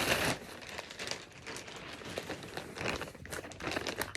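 Packaging crinkling and rustling in irregular bursts, with small clicks, as a clothing order is unpacked by hand.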